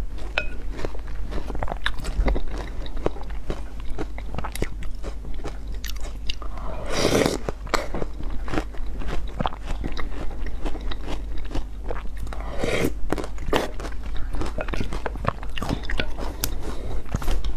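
Close-miked eating: chewing and crunching mouthfuls of yogurt with fruit pieces and oat flakes, with wet mouth clicks throughout and a few louder crunches spread through.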